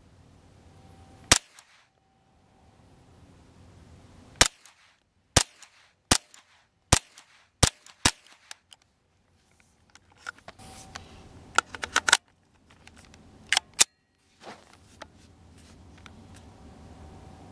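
Beretta ARX-160 semi-automatic rifle in .22 LR being test-fired: about ten sharp, light cracks at uneven spacing, some fired in quick succession.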